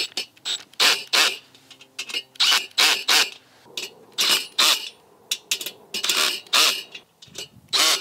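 Ratcheting wrench clicking in short, irregular bursts as nuts are tightened onto bolts.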